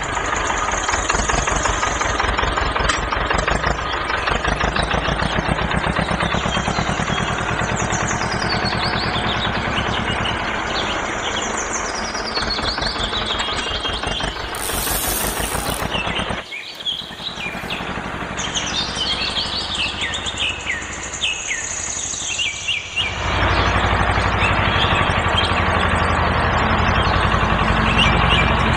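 Small electric motors of homemade toy tractors running with a steady, rapid rattle while one tractor pulls another out of the mud. The running sound drops out for several seconds a little past halfway, then starts again. Birds chirp throughout.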